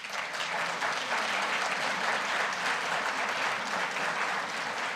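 Audience applauding steadily, the clapping starting at once and holding at an even level throughout.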